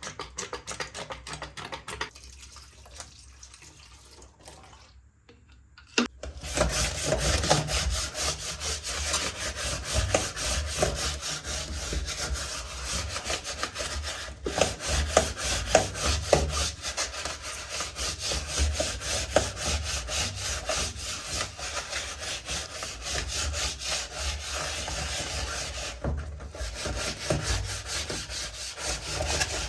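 A keyboard being scrubbed clean: fast, rhythmic back-and-forth rubbing that starts about six seconds in, after a few quiet seconds.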